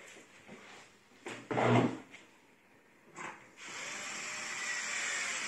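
A power screwdriver driving a screw, running steadily with a faint whine for about two seconds near the end, after a single knock about a second and a half in.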